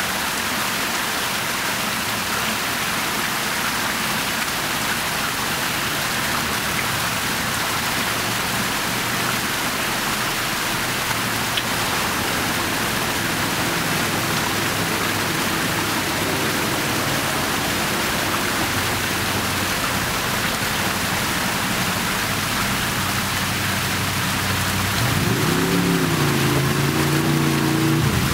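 Fountain water splashing steadily into its basin, an even rush of falling water. About 25 seconds in, a vehicle engine grows louder, rising in pitch and then holding over the splashing.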